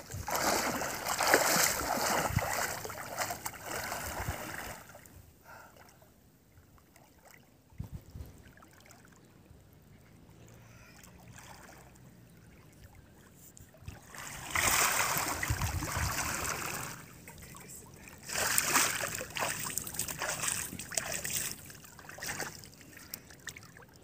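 Water splashing and sloshing as a swimmer kicks and strokes, then wades and sweeps her arms through the water. It comes in bursts, with a quieter stretch of several seconds in the middle.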